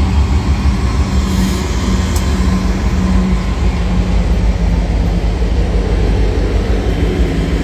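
Union Pacific diesel locomotives of a freight train passing close by: a loud, steady low rumble of engines and wheels on rail with a constant low hum.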